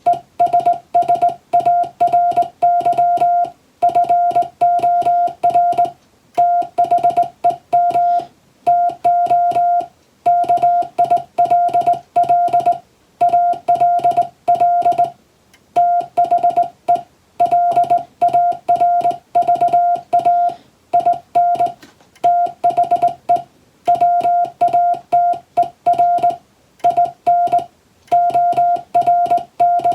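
English-text Morse code (CW) sent as a single steady beep, keyed rapidly on and off in short dots and longer dashes, with brief pauses between the letter and word groups.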